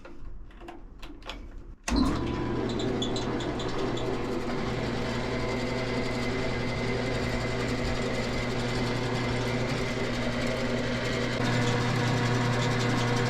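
Delta 28-206 14-inch bandsaw switched on about two seconds in and running free with no cut, its motor and freshly fitted, tensioned blade giving a steady hum that grows a little louder near the end. A few faint clicks come before it starts.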